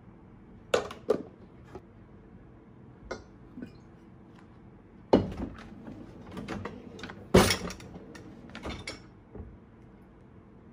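Kitchen utensils and glassware clicking and knocking on a countertop: light spoon taps about a second in, then two louder knocks midway, as a glass water bottle is set down beside a glass measuring jug, with small clinks between.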